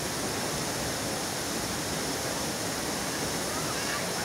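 Steady rushing of a waterfall, with water spilling over a concrete weir into a pool.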